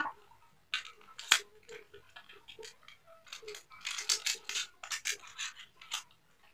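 A small makeup box being opened and a round compact taken out and handled: scattered clicks, taps and short rustles of packaging and plastic.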